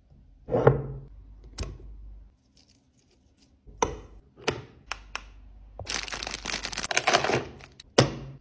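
Food containers and lids being handled: a series of sharp knocks and taps, then a dry rustling for about a second and a half, and one more knock near the end.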